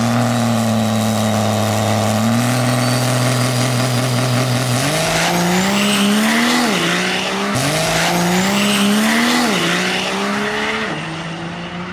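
Diesel drag-racing Dodge Ram pickup launching and pulling hard down the strip. The engine note holds steady at first, then climbs in pitch through the gears, dropping sharply at each shift, and fades a little near the end as the truck pulls away.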